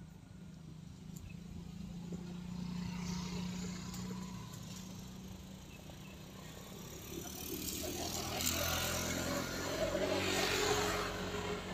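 Road traffic passing: one vehicle swells and fades in the first few seconds, then a louder one with an engine hum builds from about seven seconds in, is loudest near the end and fades away.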